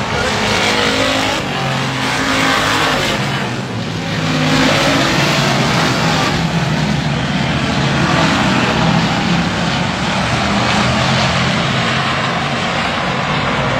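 Stock cars racing around an oval track: a pack of engines running loud and steady as cars pass by.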